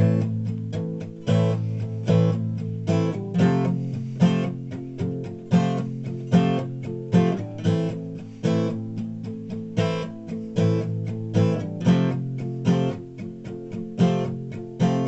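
Acoustic guitar strummed in a steady rhythm, with a few strokes a second, in an instrumental passage between sung verses.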